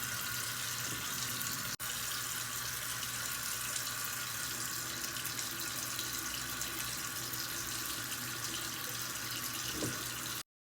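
Steady hiss of a running water tap, with a brief break near two seconds in and a cut-off near the end.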